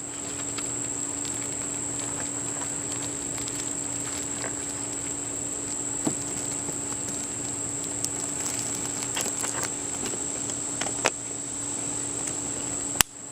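Steady insect trilling held on one high continuous note over a low steady hum, with a few faint clicks and rustles scattered through it. A sharp knock comes near the end.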